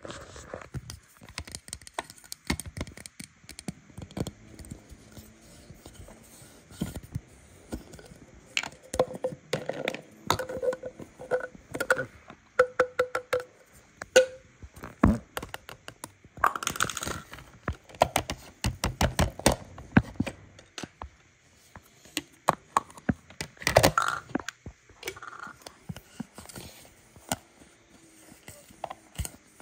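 Plastic toy dentist-playset pieces being handled, tapped and set down on a plastic tray: many small clicks and knocks, with a brief run of short squeaky notes about ten seconds in.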